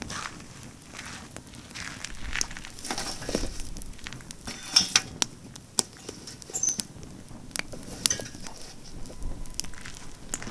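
Campfire of pine branches burning, crackling with many scattered sharp pops and snaps, busier and hissier for a couple of seconds around the middle.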